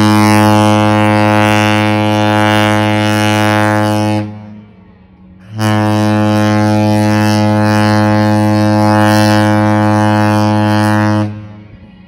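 The P&O Britannia cruise ship's horn sounding two long, deep, steady blasts: the first ends about four seconds in, and the second starts about a second and a half later and holds for about six seconds.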